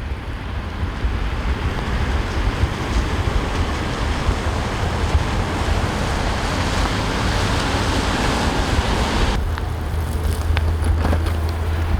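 Outdoor street noise in a snowstorm: wind buffeting the microphone over a steady wash of traffic. About nine seconds in, the hiss cuts off suddenly, leaving the low wind rumble.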